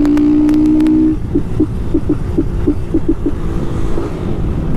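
Honda CG 160 Start's single-cylinder engine through a straight Polimet tin-can exhaust, holding a steady note. About a second in, the note breaks into a string of short stuttering blips, about five a second, for roughly two seconds before it evens out again.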